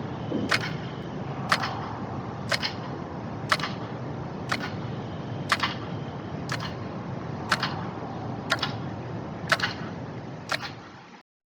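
Sharp ticks at an even pace of about one a second over a steady low rumble. Everything cuts off suddenly near the end.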